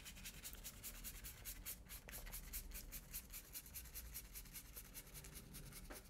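Large paintbrush brushing wet yellow paint across paper in quick, repeated strokes: a faint brushing rustle.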